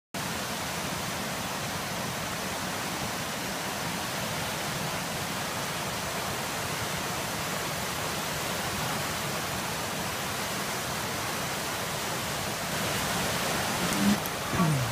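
Flood-swollen river rushing, a steady wash of turbulent runoff water with the river running high after heavy overnight rain. Near the end, two brief louder sounds, the second a short falling low tone.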